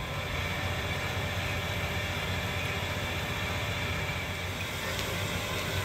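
Steady hiss and low rumble of the D51 steam locomotive standing with steam up, heard from inside the passenger car coupled directly behind it.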